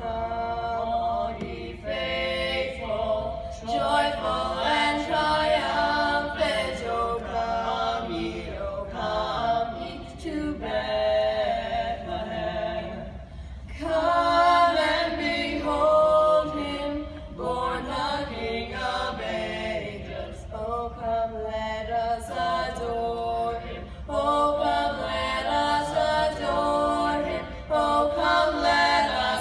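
A boys' barbershop quartet singing a cappella, four voices in close harmony, holding chords in phrases with brief breaks and growing loudest about halfway through.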